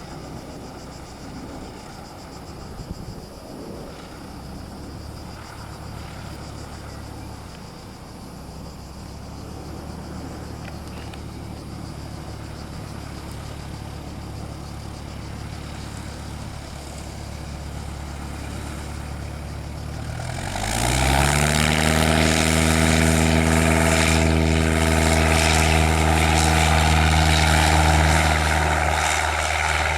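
Cessna F-172M Skyhawk's four-cylinder Lycoming piston engine and propeller running steadily at low power. About two-thirds of the way through, the engine quickly rises in pitch and loudness to full power for the takeoff run, then holds a loud, steady drone that eases slightly near the end.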